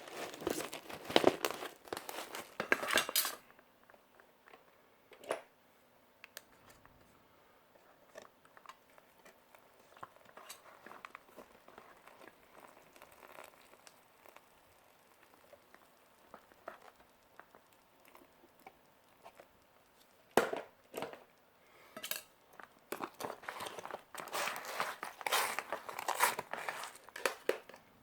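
Field-ration packaging crinkling as it is handled, in loud bursts at the start and again for the last several seconds, with faint scattered taps and rustles in between.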